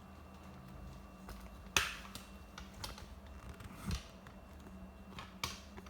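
Three scattered clicks and knocks of hands handling a laptop and a plastic tool on a workbench: a sharp click about two seconds in, a duller knock about a second after that, and a lighter click near the end.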